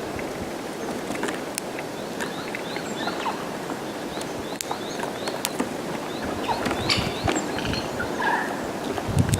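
Tits calling: many short, high rising call notes repeated throughout, with scattered sharp ticks over a steady background rush.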